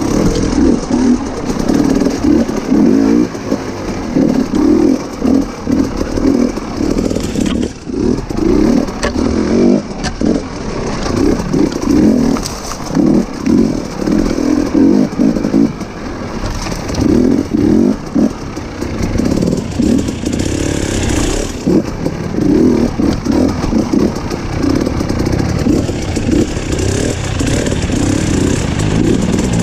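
Off-road motorcycle engine working on a trail ride, revving up and dropping back in short, repeated bursts of throttle.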